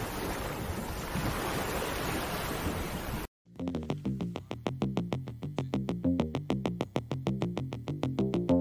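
A steady rushing noise like surf for about three seconds, which cuts off abruptly. After a brief silence, background music starts with fast, evenly pulsing notes over a stepping bass line.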